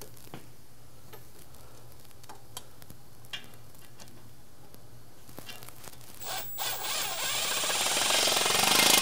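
A few light clicks of a socket and extension, then about six seconds in a small cordless driver on a long extension starts spinning a torque converter bolt in: two short bursts, then a continuous run that grows louder toward the end.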